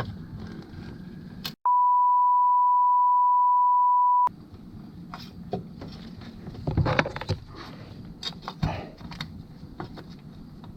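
A steady, pure beep tone lasting about two and a half seconds, edited in over the soundtrack with everything else cut out, as a censor bleep. Afterwards come scattered light clicks and knocks of parts and tools being handled.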